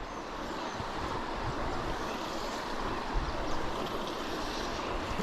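Steady rush of flowing river water, with wind on the microphone.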